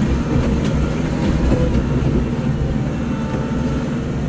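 Kubota L-series tractor's diesel engine running steadily under load.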